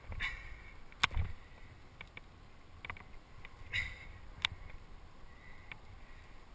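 A rock climber's movement on granite: a handful of sharp clicks and knocks from climbing gear on the harness and from hands and shoes on the rock, over a low rumble of wind and handling on a body-worn camera.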